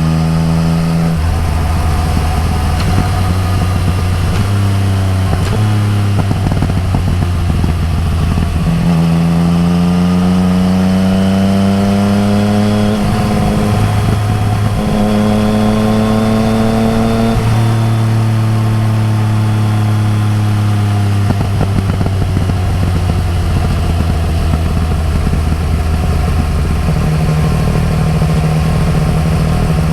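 Yamaha MT-09 Tracer's inline three-cylinder engine through an Akrapovic exhaust, heard while riding. It holds steady at first, then pulls up through the gears: the pitch climbs twice, with short breaks at the shifts. After that it settles to a steady cruise.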